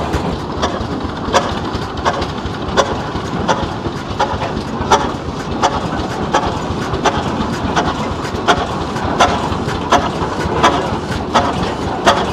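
Large antique farm tractor's slow-turning engine, firing with sharp, regular exhaust pops about one and a half times a second over a steady mechanical rumble, as the tractor drives along.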